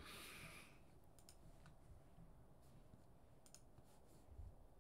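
Near silence with a few faint, scattered clicks of a computer mouse scroll wheel as a web page is scrolled, and a soft hiss right at the start.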